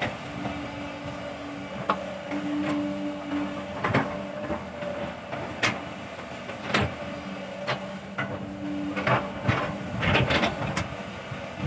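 Sumitomo hydraulic crawler excavator at work: its engine and hydraulics run steadily while the bucket digs and scrapes clay soil. Sharp knocks and clanks come every second or two, with a quick run of them near the end.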